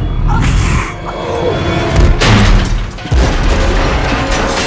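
Action-movie sound effects: heavy booms and crashing impacts over a rumbling music score. The loudest crash comes about two seconds in and another about a second later.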